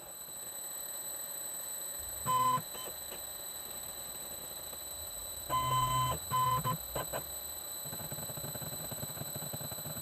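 Electronic beeps from a CNC mill's touch probe as it contacts the workpiece edges while picking up the work coordinates: one short beep about two seconds in, two more around six seconds, then a few tiny blips. A faint steady high whine runs underneath, and a low machine hum comes in near the end.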